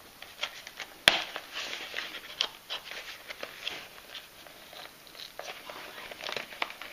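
A small cardboard knife box being handled and its end flap prised open: light scratching, rustling and tapping of cardboard under the fingers, with one sharp click about a second in.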